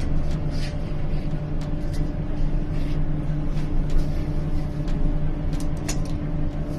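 A steady low mechanical hum with a few light clicks and taps over it.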